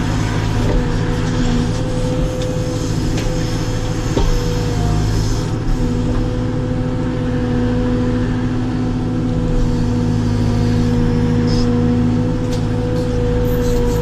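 Caterpillar 432F2 backhoe loader's diesel engine running under load while the backhoe arm digs, heard from inside the cab: a steady hum with a tone that grows louder for several seconds in the middle.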